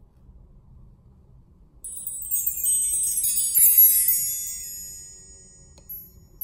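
Bar chimes: a row of hanging metal tubes swept in one stroke about two seconds in, giving a shimmering cascade of many high, overlapping ringing notes that fades away over a few seconds.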